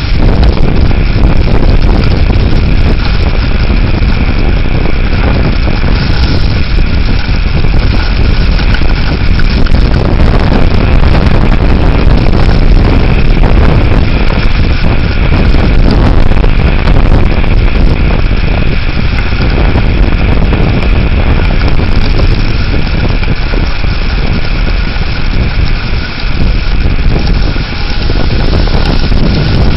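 Severe thunderstorm winds blowing hard and buffeting the microphone, a loud, steady rush of noise heavy in the low end with no letup.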